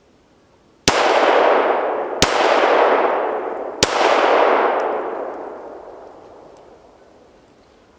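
Three rifle shots from an AR-15, spaced about a second and a half apart, each followed by a long echo rolling off through the woods.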